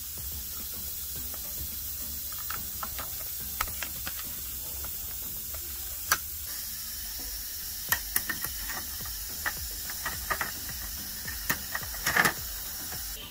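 Scattered small plastic and metal clicks and taps from hands working on an open laptop's underside: the battery cable being plugged into its connector and the bottom cover being fitted back on. A steady hiss lies under the clicks, which come thickest near the end.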